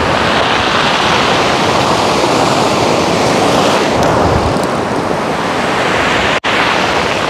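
Loud, steady rush of surf and wind by the sea in hurricane weather. The sound cuts out for an instant about six seconds in.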